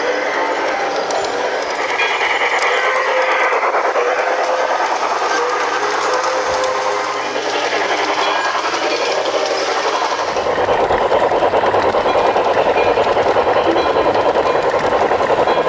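LGB garden-scale model train running on its track, with a steady rolling clatter of wheels on rail. About ten seconds in the clatter turns louder and denser, heard close up from on board the moving train.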